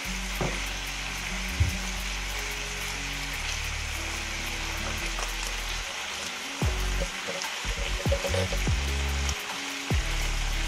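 Turkey roulades sizzling steadily in sauce in a frying pan, with a few knocks and bumps in the second half.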